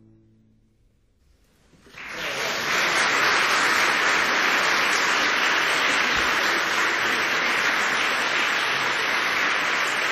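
After a brief hush, audience applause starts about two seconds in and keeps on at an even level.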